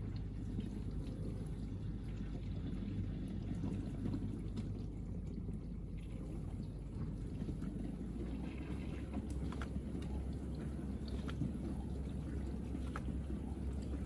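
Bosch dishwasher mid-wash on an intensive 70°C pots-and-pans cycle: water spraying and sloshing inside the tub over the steady hum of the wash pump. The hum shifts slightly lower a little past halfway, and a few faint ticks come near the end.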